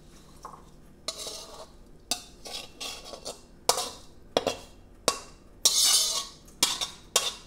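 Metal spatula scraping and clinking against a metal wok as stir-fried bamboo shoots are scooped out into a bowl: a string of about ten sharp scrapes and knocks, with one longer scrape about six seconds in.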